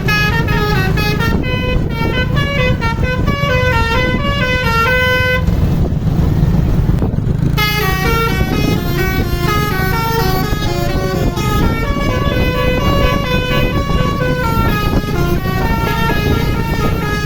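A bus's basuri multi-tone air horn playing a quick melody note by note, with a break of about two seconds a third of the way through before the tune resumes. A steady low rumble runs underneath.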